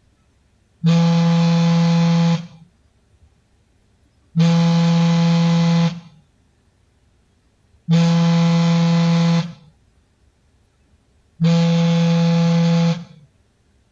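Samsung smartphone vibrating for an incoming call: four buzzes of about a second and a half each, roughly three and a half seconds apart.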